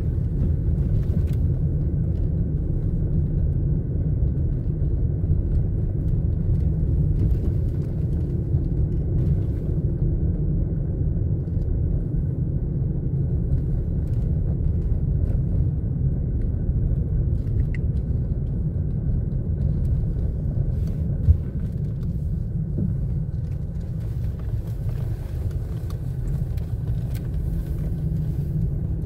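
Steady low rumble of a car's engine and tyres heard from inside the cabin as it drives, with one short knock about twenty seconds in.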